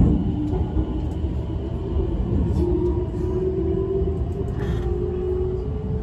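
Nankai 50000 series 'rapi:t' electric train running, heard from inside the car: the traction motors' whine rises slowly in pitch as the train gathers speed, over a steady rumble of wheels on the rails, with a few faint clicks.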